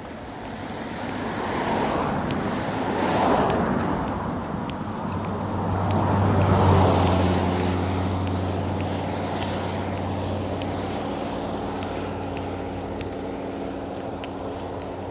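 Cars passing on a road: two rise and fade past, about three and about seven seconds in, and then a steady low engine hum lingers and slowly fades.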